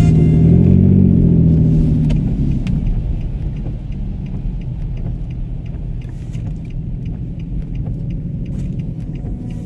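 Steady low rumble of a car, with a few faint ticks, as music fades out over the first two seconds.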